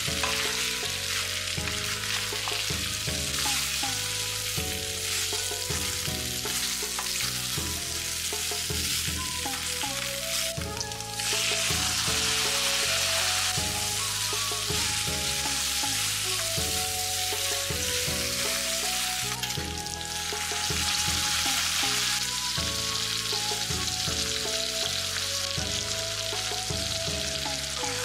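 Pork belly and shiitake mushrooms sizzling in hot oil in a wok as they are stir-fried, a wooden spatula turning and scraping them. The sizzling grows louder about eleven seconds in and again about twenty seconds in.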